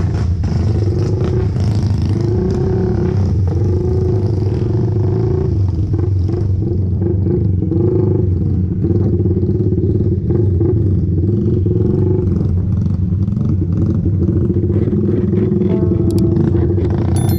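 Small motorcycle engine running as the bike rides along at low speed, its pitch rising and falling a little with the throttle.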